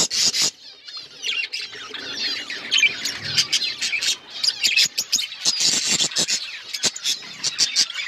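Several budgerigars chattering and warbling together: a busy stream of short chirps, squawks and clicks, with a brief lull about a second in.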